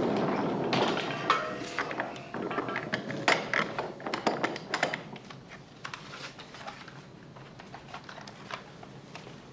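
A padlock and metal bolt being worked at an old wooden door: a quick run of sharp metal clicks and rattles for about five seconds, then fainter scattered clicks.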